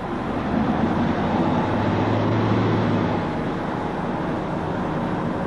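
Boat engine running under way, with water rushing past the hull; a low engine hum swells in the middle.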